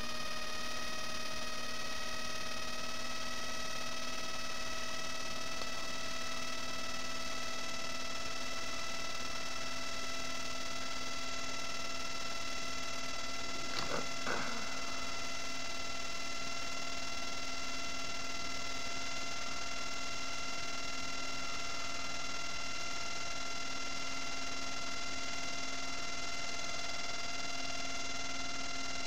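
Steady electrical hum and whine made of several stacked pitches, creeping slowly up in pitch, over a low hiss. Two short knocks come about halfway through.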